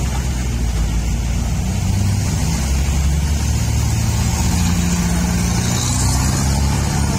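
Road vehicle engines running steadily with a low drone: a loaded cargo truck climbing away up a steep hairpin while cars and a minibus drive past close by.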